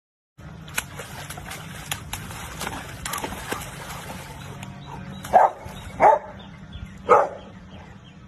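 Water splashing and sloshing in a muddy puddle, with scattered sharp splashes, then a dog barking three times in the second half, each bark short and loud.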